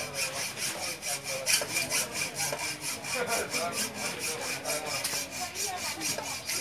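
Hand hacksaw cutting with quick, even back-and-forth strokes, about four a second.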